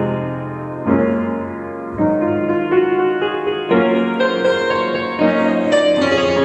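Solo digital piano playing an arrangement of a gospel hymn. Full chords are struck about once a second at first. From about halfway, a busier, louder stream of notes climbs higher.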